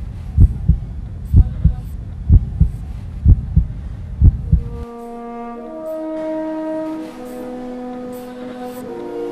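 Heartbeat sound effect on a film soundtrack: five low double thumps about a second apart, stopping about five seconds in. Slow music of long held notes then takes over.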